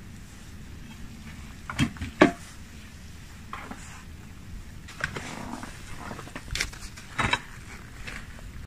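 Long metal kebab skewers clicking and scraping against each other and the plate as they are pushed through a raw guinea fowl. A few separate sharp clicks, the loudest two close together about two seconds in.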